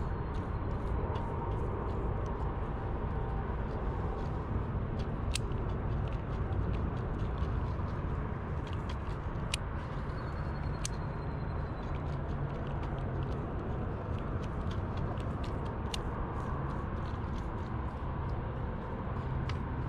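Steady low rumble of distant road traffic, with scattered light clicks and ticks.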